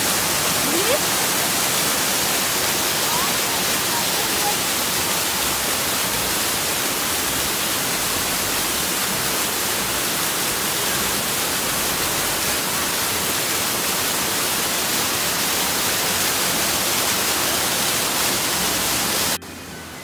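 Yoro Falls, a waterfall about 32 m high, heard close: a loud, steady rush of falling water. Near the end it cuts off abruptly to a much quieter hiss.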